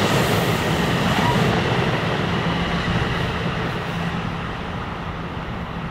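NJ Transit bilevel passenger train rolling away along the track. A steady rumble with a low hum fades over the last few seconds as the cab car end recedes.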